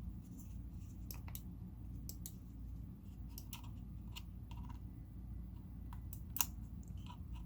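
Light, scattered plastic clicks and taps from a wireless computer mouse being handled, with one sharper click about six seconds in.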